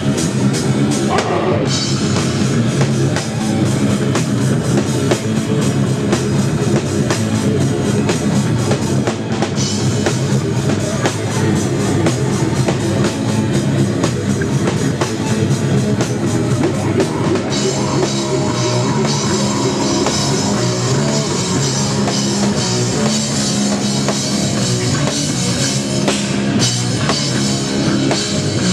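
Live rock band playing loud: electric guitar, bass guitar and a drum kit, heard from close in front of the band.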